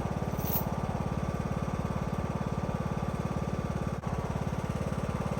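Riding lawnmower engine idling steadily with a rapid, even pulse, with one brief dip about four seconds in.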